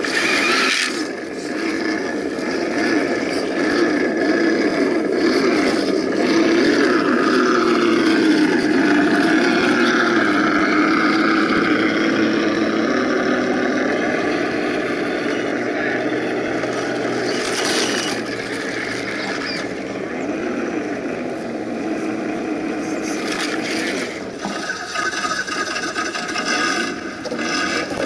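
Electric motors and gear trains of radio-controlled scale crawler trucks whining as they climb over rough dirt, the pitch rising and falling with the throttle, with a few brief clatters.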